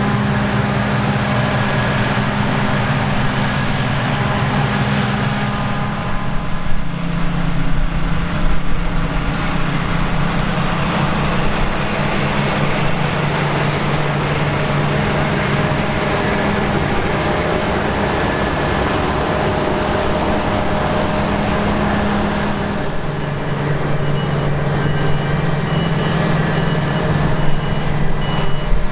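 Large diesel farm machinery running at harvest, a steady heavy engine sound that grows rougher and louder for a few seconds early on. About three-quarters of the way through, a high warning beep starts repeating, about two beeps a second.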